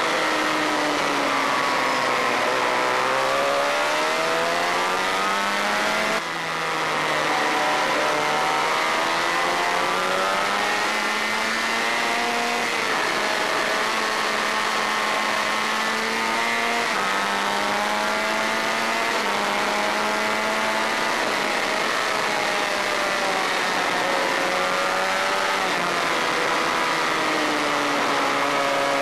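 Honda VFR400's 400cc V4 engine heard from on board at racing speed, revving up to around 13,000 rpm through the gears and falling away when the throttle is shut into corners, its pitch climbing and stepping with each gear change. A steady rush of wind noise runs underneath.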